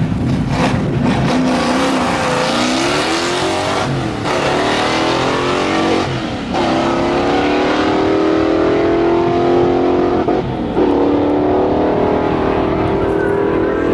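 Muscle car V8 accelerating hard through the gears: the engine note climbs, drops back at each of three upshifts, then climbs again.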